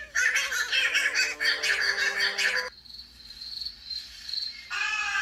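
Bird and insect calls: a burst of rapid, dense high chirping calls for about two and a half seconds, then a thin faint high chirp like crickets, and a louder chirring chorus starting near the end.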